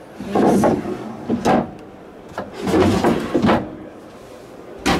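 Wooden galley drawers sliding shut, with several rubbing, knocking strokes, then a single sharp knock near the end as a cupboard door below is handled.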